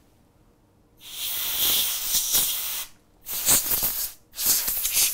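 Can of compressed air spraying through its thin red straw nozzle, blowing debris off a laptop logic board: three hissing blasts of one to two seconds each, starting about a second in.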